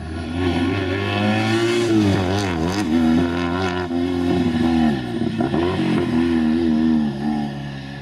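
Steyr-Puch 650T rally car's air-cooled flat-twin engine at full throttle. The revs fall away and climb again twice, about two and a half seconds in and about five seconds in, then hold high before easing near the end.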